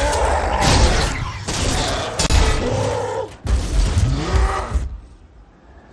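Film action sound effects: the Hulk roaring and grunting several times amid crashing rubble and smashing metal. It falls away to a low rumble about a second before the end.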